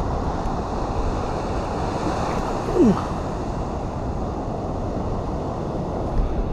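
Ocean surf washing on a beach, with wind buffeting the microphone. A brief falling tone about three seconds in.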